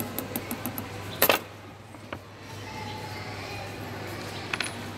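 A jeweller's small hammer tapping a steel setting punch to set stones into a gold piece. A run of quick light metallic taps comes first, then one louder strike about a second in, a single tap near two seconds, and a couple of lighter clicks near the end.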